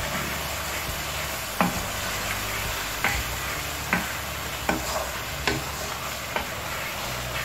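Thick pepper sauce sizzling in oil in a non-stick frying pan while a wooden spoon stirs it. A short scrape or knock of the spoon on the pan comes about once a second.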